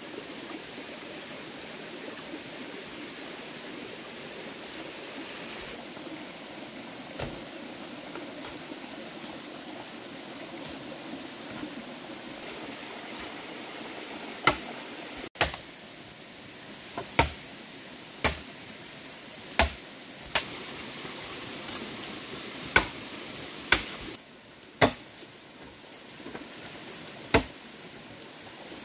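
Machete chopping into a standing bamboo culm: about ten sharp strikes, roughly one a second, beginning about halfway through, over a steady background hiss.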